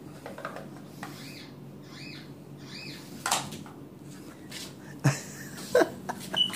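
A puppy gives three short, high, squeaky whimpers. Then come knocks and scuffs, louder near the end, as it paws at a plastic pudding cup on the rug.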